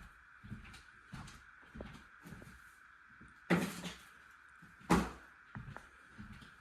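Freezer door being opened and shut around an ice tray being put in: a few light knocks and clunks, then two louder thuds about a second and a half apart.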